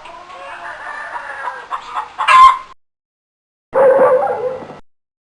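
Chicken sound effect: clucking that builds to a loud squawk. After about a second of silence comes a rooster's crow lasting about a second.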